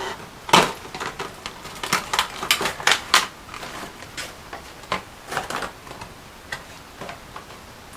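A cardboard product box being handled: irregular clicks, taps and light rustles, sharpest about half a second in and thinning out over the last few seconds.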